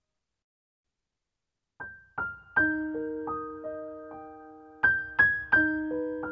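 Background piano music: silent for the first two seconds, then a slow melody of struck piano notes and chords that ring on and fade.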